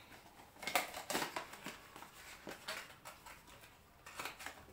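Hands handling a watch box and its packaging while taking the watch out: a run of short clicks, taps and rustles, busiest about a second in, with a few more taps later on.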